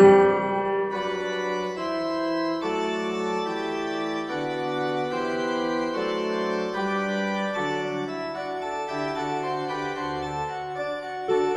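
Background music of sustained, organ-like chords that change every second or so.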